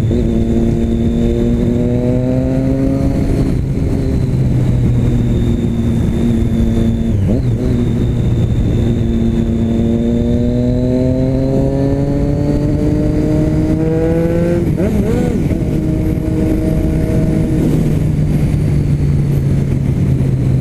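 Motorcycle engine through a new Jeskap aftermarket exhaust under acceleration: the note rises and drops at an upshift about three and a half seconds in, holds steady, then climbs again and drops at another upshift about fifteen seconds in before settling to a steady cruise note. A steady rushing noise runs underneath.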